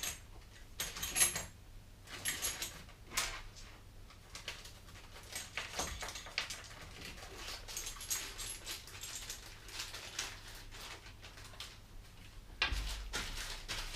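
Handling noise of bagged model-kit parts: irregular rustling of plastic bags with small clicks and knocks of hardware, a little louder near the end.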